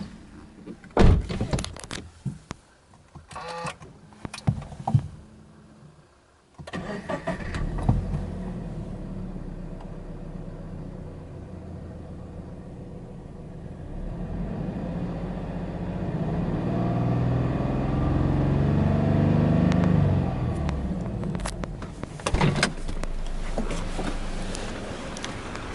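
Subaru BRZ S's 2.0-litre flat-four boxer engine, heard from inside the cabin, cranked and started about six seconds in after a few clicks and knocks, then running at a raised cold-start idle of about 1,500 rpm. The engine note swells and eases back a little before twenty seconds, and a few sharp knocks come near the end.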